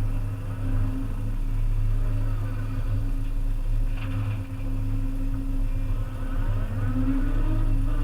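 Volvo EC300E excavator's diesel engine running steadily, with a short clank about halfway through and a rising whine near the end.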